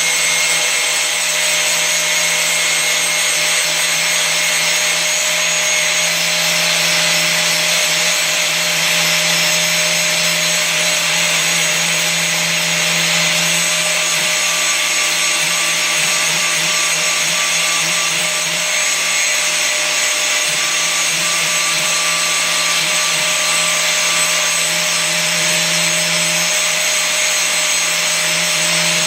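Angle grinder running steadily under load, its disc grinding along the edge of a steel mower blade to sharpen it. The hum and grinding hiss stay loud and even, without a break.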